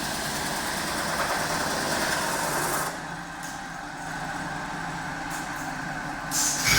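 CNC metal spinning machine running steadily, with its noise easing off for a few seconds and then rising sharply again near the end.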